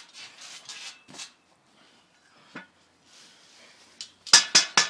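Metal pan clanging in a quick run of sharp, ringing strikes near the end, after a few faint knocks.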